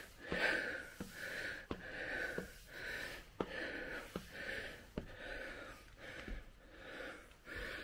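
A man breathing hard from climbing stairs, panting in rhythmic breaths about once a second, with a few sharp knocks of his footsteps on the stair treads.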